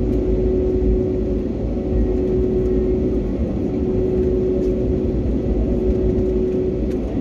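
Jet airliner heard from inside the cabin while taxiing: a steady engine drone with one held tone over a low rumble from the engines and the wheels on the ground.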